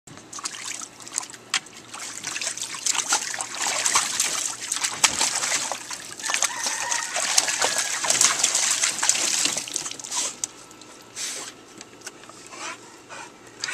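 An American Staffordshire Terrier pawing and splashing at shallow water in a plastic wading pool: many quick splashes for about ten seconds, then only a few scattered splashes and drips near the end.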